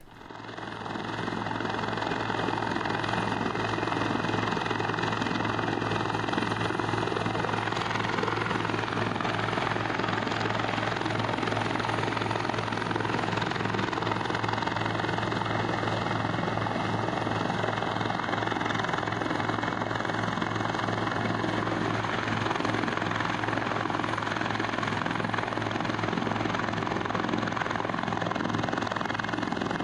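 Coast guard rescue helicopter running steadily, its rotor beating continuously, after a fade-in over the first second or so.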